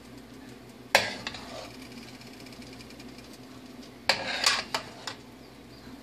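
Metal basting ladle clinking against the roasting pan while basting a roast turkey: one sharp clink about a second in, then a quick run of clinks around four to five seconds in.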